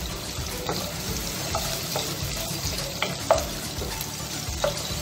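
Garlic and sliced onion sizzling in oil in a nonstick pot, stirred with a wooden spatula that clacks and scrapes against the pot several times. The loudest knock comes a little past three seconds in.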